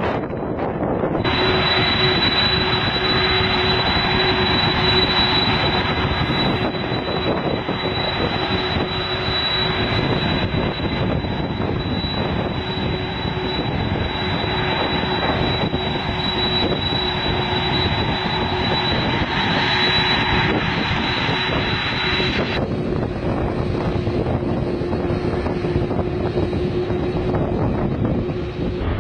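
Boeing 747 jet engines running as the airliner taxis: a steady rushing noise with a high whine held over it. About three-quarters of the way through the whine drops away and the rushing goes on.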